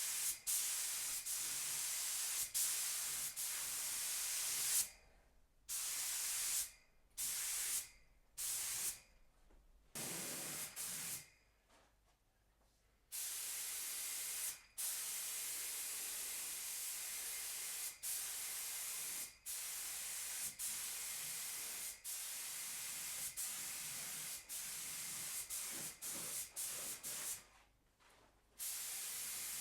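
Compressed-air paint spray gun hissing as it sprays, stopping and starting repeatedly, with several short breaks between passes and longer pauses about a third of the way in and near the end.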